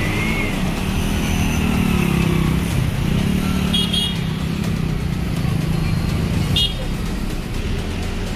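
Road traffic on a flooded street: motorcycle and auto-rickshaw engines running through the water in a steady low rumble. Short high vehicle-horn beeps sound, a quick double beep about four seconds in and another near seven seconds.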